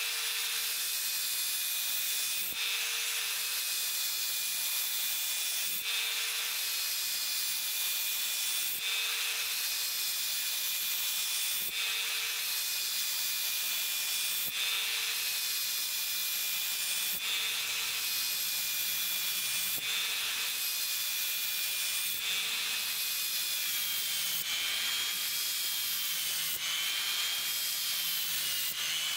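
Bosch AdvancedGrind 18 cordless angle grinder driving a homemade belt-sander (power file) attachment, its abrasive belt running against a curved steel blade with a steady hiss and motor whine. The sound changes slightly every two to three seconds as the belt is worked along the edge.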